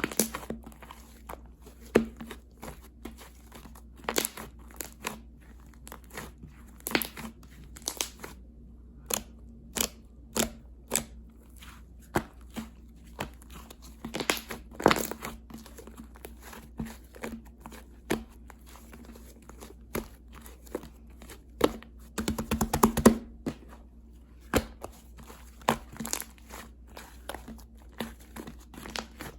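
Sharp crinkling and crunching sounds at irregular intervals, with a dense run of them about 22 seconds in, over a faint low hum.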